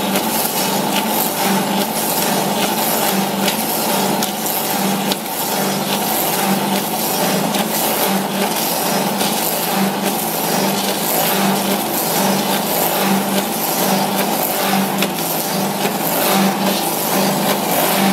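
FK-2 copy-milling woodworking machine running and milling two wooden blanks to shape: a loud, steady mechanical noise of the spinning cutter chewing wood, over a low hum that pulses rhythmically.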